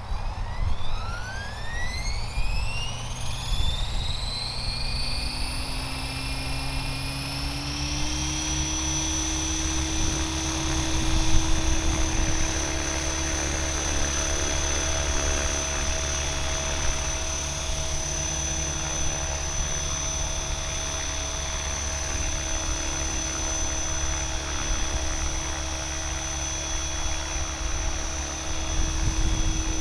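Align T-Rex 550E electric RC helicopter spooling up. The whine of its motor, gears and rotor rises in pitch over the first eight seconds or so, then holds steady in flight. Wind rumbles on the microphone throughout.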